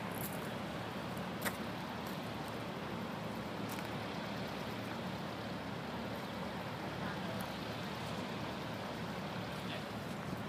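Steady outdoor rumble with a low hum and no distinct events, apart from one sharp click about a second and a half in.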